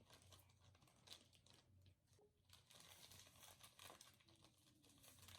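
Faint crinkling and small scattered ticks from slime being handled and pressed together, very quiet overall.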